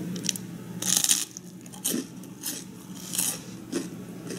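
Crispy fried bread being bitten and chewed: a series of about six sharp crunches, the loudest about a second in and about three seconds in.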